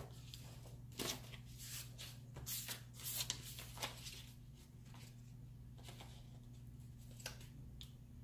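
Paper and sticker sheets being handled: a string of short, crisp rustles and crinkles, busiest in the first half, with a few more near the end.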